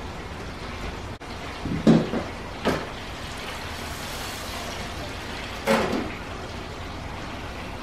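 Countertop electric deep fryer: its metal lid and wire frying basket clunk twice as the basket is lifted, and the hot oil sizzles louder for about a second while the basket is up. A final clunk near the end as the lid goes back down, over a steady low hiss of frying oil.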